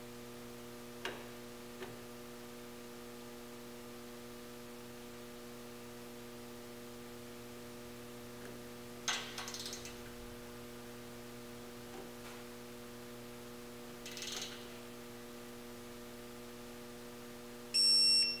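Steady low electrical hum with a few faint clicks and rustles of the wrench on the tension lugs. Near the end a Snap-on digital torque wrench gives one short, high-pitched beep, the signal that the lug has reached the torque it is set to.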